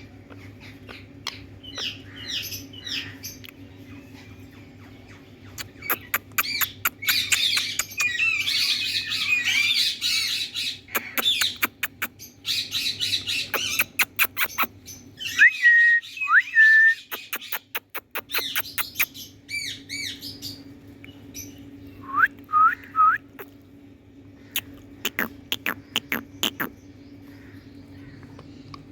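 Indian ringneck parrot calling: a long run of rapid, harsh squawks and chatter starting about six seconds in, then a few clear whistled notes that glide up and down, and later short bursts of squawks. A steady low hum runs underneath and drops out for a couple of seconds midway.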